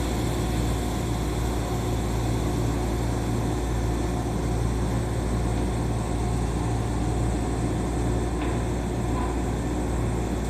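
Steady low hum and rumble inside an electric commuter train, with several steady tones from the onboard equipment.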